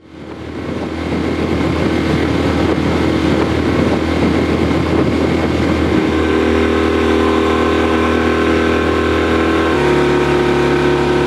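Motorboat engine running steadily under way, its note stepping to a different pitch about halfway through and again near the end.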